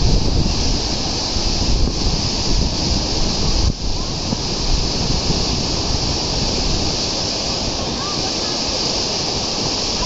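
Fast mountain river rushing over rocks and boulders: a loud, steady rush of white water.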